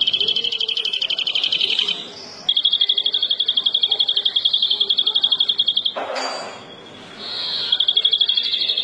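European greenfinch singing: three long, fast trills on one high, steady pitch, each lasting two to four seconds, with a short rustle in the gap about six seconds in.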